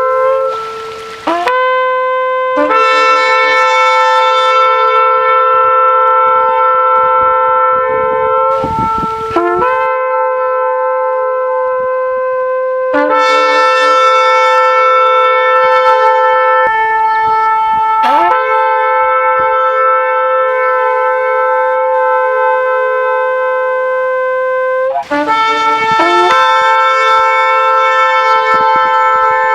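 Shofar (ram's horn) sounding a series of long held blasts on one steady note, each lasting several seconds, with brief breaks between them where the pitch scoops up into the next blast and breath noise is heard.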